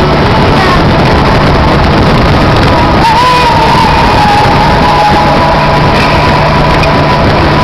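Motorcycle riding at road speed: steady wind noise on the microphone over the engine of a BMW K1200LT touring bike, with a thin wavering music-like tone over it from about three seconds in.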